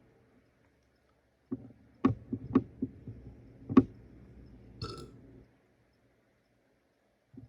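A person burping: a string of short, croaking belches over about two seconds, the loudest near the end, followed by a brief breathy sound. The burps are swallowed gas from fizzy soda coming back up.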